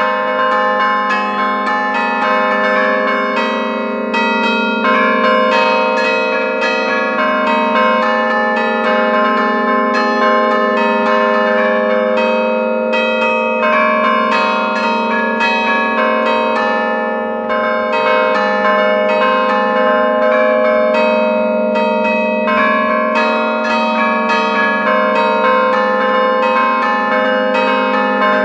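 Five-bell ring in A-flat by Giorgio Pruneri (1907) played by hand from a keyboard as a Bergamo-style allegrezza. The bells hang still while their clappers strike in quick succession, an unbroken stream of melodic strikes whose tones overlap, heard loud and close from inside the bell chamber.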